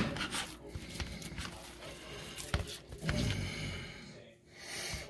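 Hands working a raw ground beef mixture in a bowl: quiet, soft squishing and handling noises with a few light clicks.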